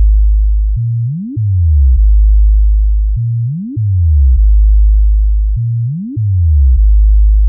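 Electronic bass test track: a deep, steady low tone held for about a second, then a quick rising sweep and a run of falling notes back down, the pattern repeating about every two and a half seconds.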